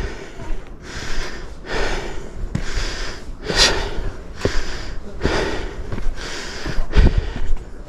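Hard, heavy breathing of a hiker climbing steep stone steps: quick breaths in and out, roughly one every second, with one sharper gasp about three and a half seconds in. A few low thuds of footsteps on stone come through.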